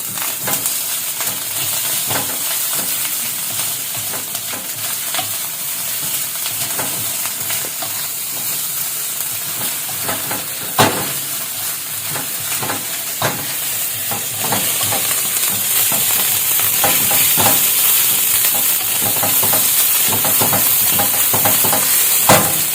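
Corned beef fried rice sizzling in a frying pan as it is stir-fried, with the stirring utensil scraping and clicking against the pan and a few sharper knocks.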